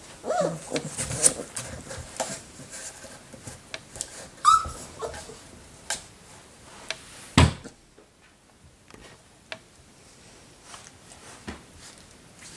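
Four-week-old puppies play-fighting: small yelps, whines and growly sounds with scuffling and light knocks. A single sharp knock about seven seconds in is the loudest sound, and it is quieter after it.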